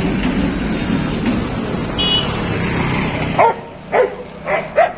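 A steady low rumbling noise, then a dog barking four times in quick succession from about three and a half seconds in.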